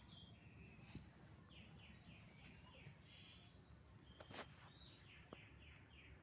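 Faint birds chirping: runs of quick, short, descending notes, with one sharp click about four seconds in.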